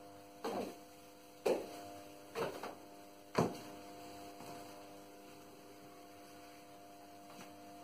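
Steady electrical hum with a few short knocks, roughly one a second, in the first half.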